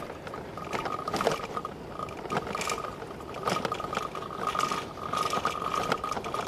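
A bicycle rattling as it rides, its loose bell giving off a faint broken ringing tone while irregular clicks and knocks come from other loose fittings. The bell needs fixing, and the zip ties holding things on have worked loose.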